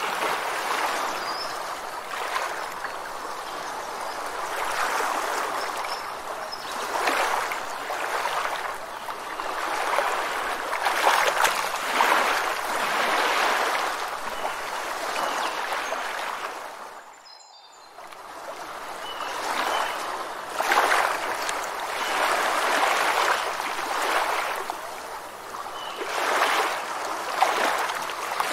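Rushing water, swelling and easing every few seconds, with a few faint short bird chirps; it fades out briefly a little past the middle and comes back.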